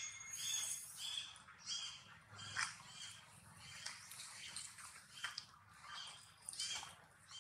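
Short, high-pitched animal squeaks or chirps repeating about twice a second.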